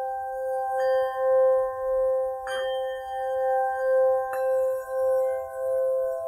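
Ambient background music of held, ringing bell-like tones. The lowest tone wavers about twice a second, and soft struck notes add new tones about a second in, midway, and a little past four seconds.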